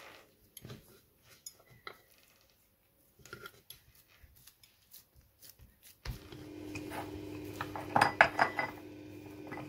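Faint handling sounds of coiled paratha dough being pressed on a wooden board. About six seconds in, a steady hum starts suddenly, joined by a run of clinks and knocks like kitchen utensils or a pan being handled.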